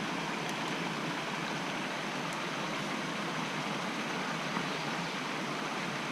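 Steady rushing of a mountain trout stream, water flowing over rocks, with a few faint ticks.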